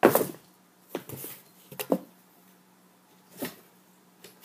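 Kittens playing at a cardboard box: a few short scuffs and knocks of paws and bodies against the cardboard, the loudest right at the start.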